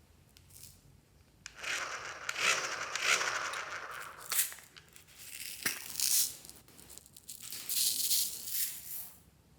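Slime being mixed with small hard add-ins, rattling and crackling in a series of noisy bursts, with one sharp click about halfway through.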